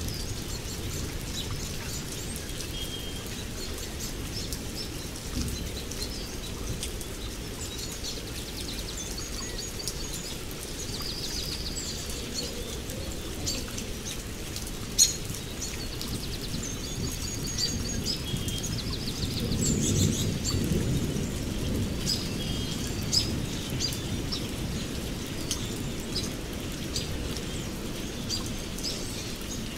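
Steady rain with birds chirping and trilling over it, and a low rumble of distant thunder swelling about two-thirds of the way through. A single sharp click stands out about halfway through.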